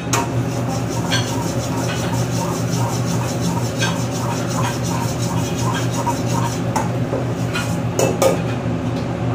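Metal ladle scraping and stirring in a wok, with several sharp knocks of the ladle against the pan. A steady hum from the gas burner and kitchen exhaust hood fan runs underneath.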